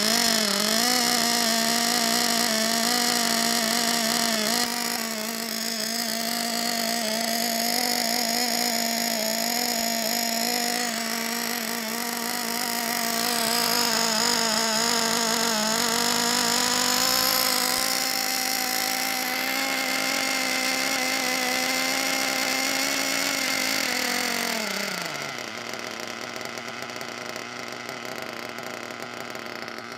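Small nitro RC car engine running at a steady high rev with a slight wobble in pitch, then dropping back toward idle about 25 seconds in.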